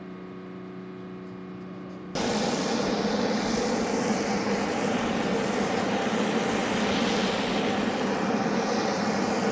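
A steady hum of several even tones, then about two seconds in, loud, steady aircraft engine noise takes over and keeps on unchanged.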